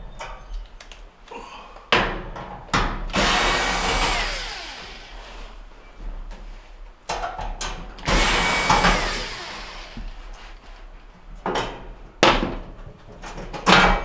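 Cordless drill/driver running in two spells of about two seconds each, backing screws out of a gas range's control panel. Sharp clicks and knocks in between come from the screws and the panel being handled.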